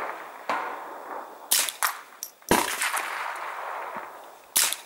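Suppressed Ruger 10/22 Takedown .22 LR semi-automatic rifle firing a string of shots: about five sharp cracks at uneven spacing. The loudest comes about halfway through, and each trails off in a long echo.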